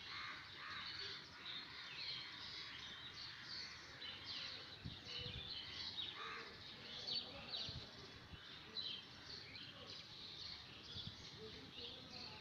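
Faint background birdsong: many small birds chirping and twittering continuously.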